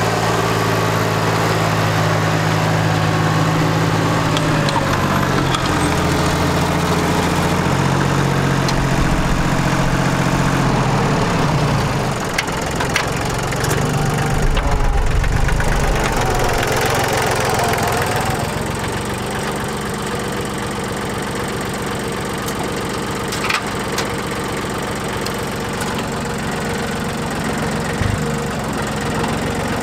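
Yanmar FX175 compact diesel tractor running while tilling with its rotary tiller. The engine note drops in pitch about twelve seconds in and runs lower and steadier from about eighteen seconds, with a couple of short knocks near the end.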